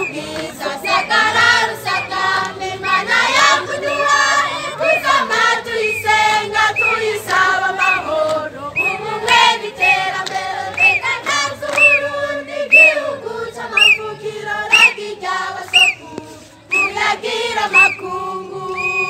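A group singing a Kirundi song together in chorus. Short high notes that rise and fall recur above the voices, and near the end the singing settles onto a held note.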